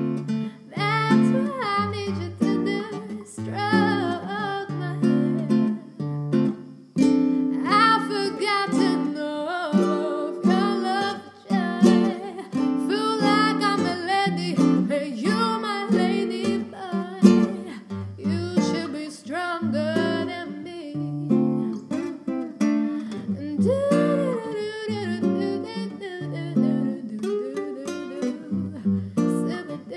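A woman singing a soulful melody with a live acoustic guitar accompaniment.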